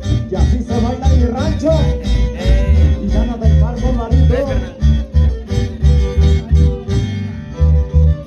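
Instrumental dance music from a live string band: violins carry a sliding melody over guitars, electric bass and drums keeping a steady beat.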